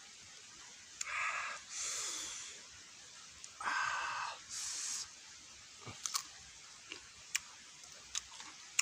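A man eating sour catmon fruit dipped in chili salt: two loud breathy hisses through the mouth, one about a second in and another near the middle, then soft chewing clicks and crunches. The hisses are his reaction to the sour, spicy bite.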